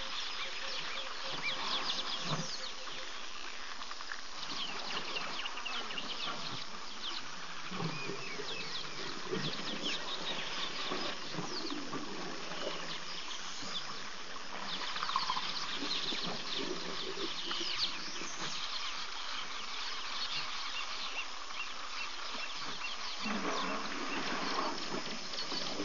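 Many birds chirping and calling at once, with insects, making a dense, steady chorus of short high notes.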